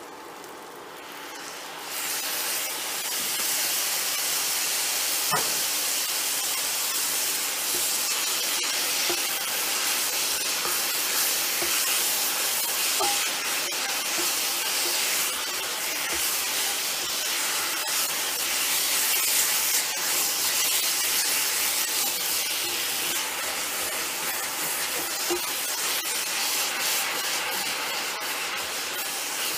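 Sauce and egg noodles sizzling and hissing in a hot Lodge 9-inch cast iron mini wok as the noodles are tossed with a wooden spoon. The sizzle swells about two seconds in and then stays steady.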